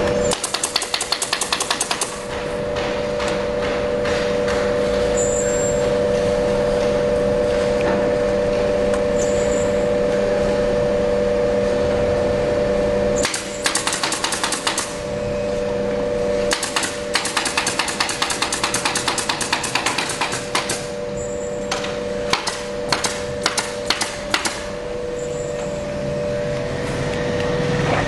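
Hand-held powered fastening tool driving fasteners into plywood crate panels: runs of rapid, sharp strikes, the longest lasting several seconds in the middle, then single shots near the end, over a steady mechanical hum.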